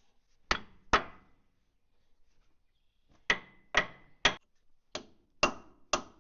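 Hammer blows on steel, beating on a stuck dowel pin to work it loose. Two blows, a pause of about two seconds, then six more at about two a second, each with a short metallic ring.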